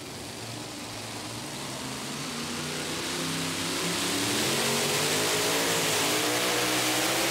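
Supercharged big-block engine of a modified two-wheel-drive pulling truck working hard as it drags a weight-transfer sled. The engine note wavers and climbs, and it gets louder over the first four seconds or so before holding steady.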